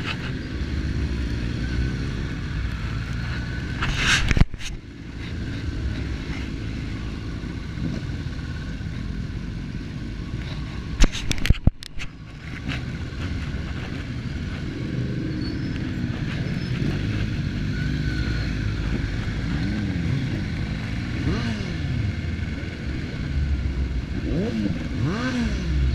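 Motorcycle engine running at low road speed under wind rumble, its note rising and falling several times as the throttle is worked. A brief knock about four seconds in and a louder cluster of knocks and scrapes about eleven seconds in, a gloved hand striking the camera.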